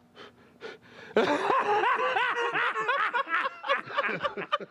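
A man laughing hard: after a quiet first second, a quick run of short, rising-and-falling laughs.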